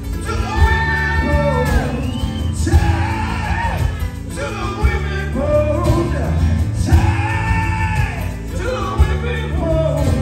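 Live acoustic rock band performance: a man sings a strong, shouted-edged lead vocal into a handheld microphone over strummed acoustic guitars and a steady low accompaniment.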